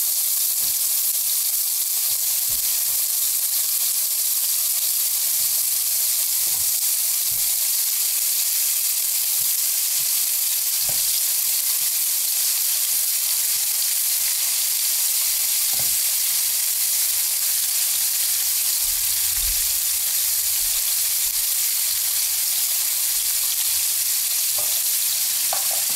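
Beef chunks searing in hot olive oil in two frying pans: a steady sizzle, with a few faint knocks as pieces are set into the pans and moved with tongs.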